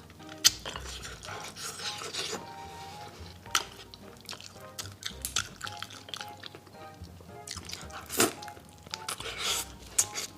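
Wet chewing and sucking of tiger-skin chicken feet, with many short sharp mouth clicks and smacks, over background music with steady held notes.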